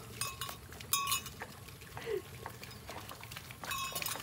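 Herd of cattle walking along a wet dirt road: scattered light clinks and knocks, two of them ringing briefly, and a short falling call about two seconds in.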